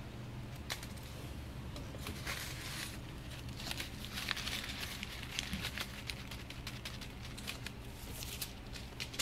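Balled-up paper receipt crinkling and rustling as it is handled, in short bursts with light clicks, busiest through the middle.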